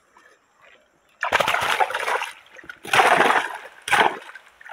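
A mesh bag plunged into shallow water and pulled back up, splashing and sloshing in three bursts that start about a second in.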